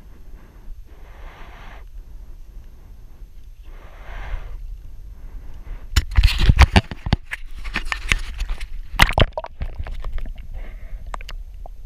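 A few soft breathy rushes of noise, then from about six seconds in a run of sharp knocks and clatter, loudest twice, from a hand handling the camera and gear in a plastic fishing kayak.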